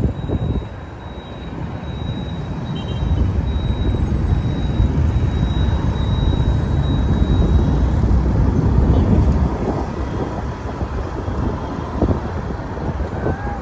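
Riding on a motorcycle along a highway: a steady low rush of wind, engine and road noise. It swells to its loudest in the middle and eases off near the end.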